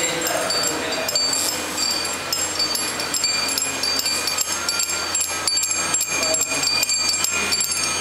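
Chimes ringing and clinking: many high tones struck in quick, irregular succession, each ringing on and overlapping the next.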